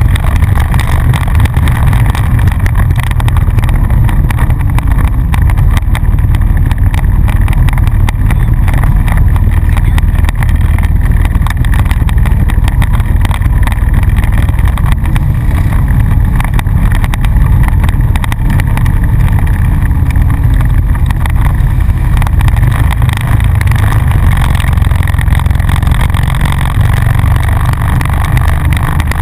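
ATV (quad) engine running at a steady trail-riding pace, heard through a camera mounted on the machine's front rack, with a heavy, steady low rumble.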